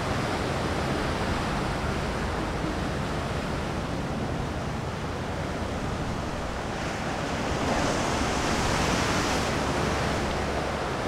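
Ocean surf rolling onto a sandy beach: a steady wash of breaking waves, with one wave breaking louder and hissing brighter from about two-thirds of the way through.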